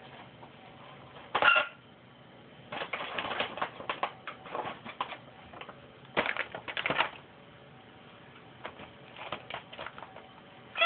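A cat rummaging in a plastic snack bag of pretzel crisps, making the bag crinkle and crackle in several bouts of quick clicks. A short, loud sound comes about a second and a half in.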